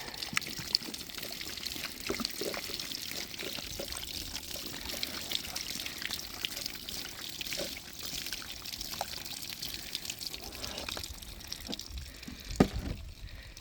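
Water pouring and trickling out of a jug, with scattered small clicks and a sharper knock or two near the end.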